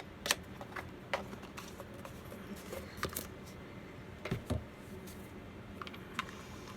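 A paintbrush being cleaned in paint thinner makes small, sharp clicks and taps at irregular intervals, about a dozen in all. The most distinct ones come near the start and about three seconds in.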